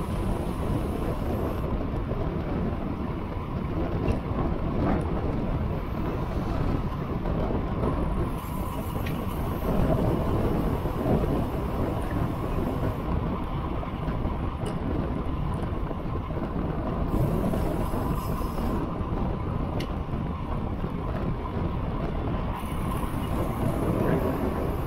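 Steady wind rushing over the microphone of a camera riding along on a road bicycle, mixed with the hiss of bicycle tyres rolling on asphalt.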